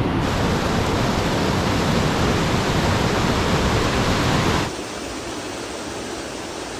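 Waterfall and white-water rapids rushing over rocks, a steady, even roar of water. About two-thirds of the way through it drops suddenly to a quieter level, the same water heard from farther back.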